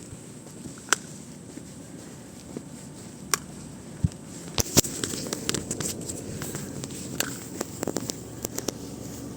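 Footsteps while walking, with scattered sharp clicks and knocks at irregular intervals over a steady outdoor hiss that grows a little louder about halfway through.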